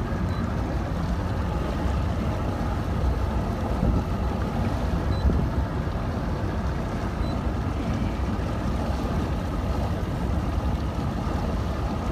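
Bass boat running across the water: a steady low rush of outboard engine, wind and water.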